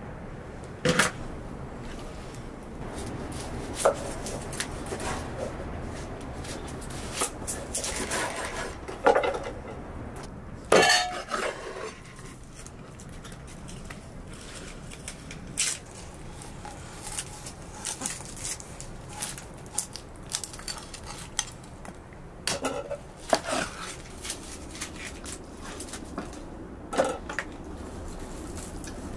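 Large kitchen knife cutting a raw whole chicken into pieces on a wooden board: scattered knocks as the blade chops through the joints onto the wood, with metallic clinks and a brief clatter about eleven seconds in.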